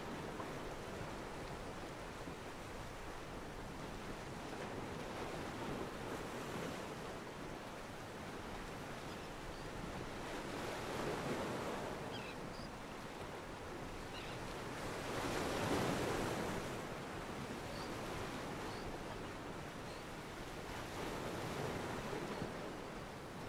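Ocean waves washing against a pier, a steady wash that swells and ebbs three times, the biggest swell about two-thirds of the way through.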